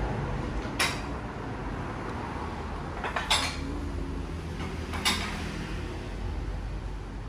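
Ceramic bowls and dishes clinking as they are handled and set down: three sharp clinks, one about a second in, a double one at about three seconds and one near five seconds, over a low steady hum.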